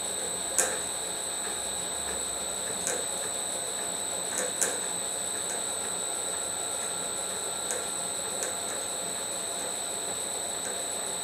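Smart and Brown 1024 lathe running at low speed in gear, its cutter taking a light cut along a clock fusee's thread: a steady high whine over a mechanical hum, with a few sharp clicks scattered through.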